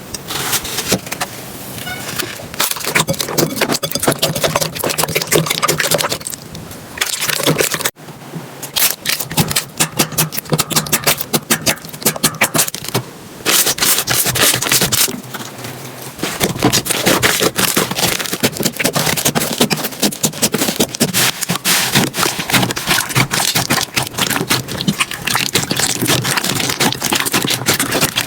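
Slime being squeezed, pressed and poked close up, making a dense crackle of small wet clicks and pops, with the texture changing every few seconds.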